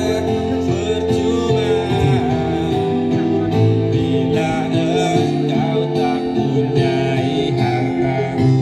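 Men singing into handheld microphones over music with guitar accompaniment, amplified.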